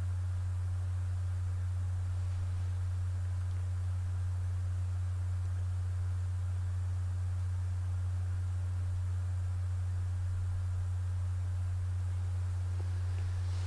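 A steady, unbroken low hum: one deep tone with a fainter tone above it, over faint hiss.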